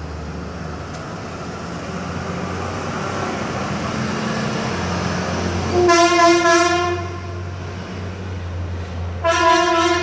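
Los Angeles Fire Department ambulance driving past, its engine and road noise building, then two steady blasts of its horn, each about a second long, one near the middle and one near the end.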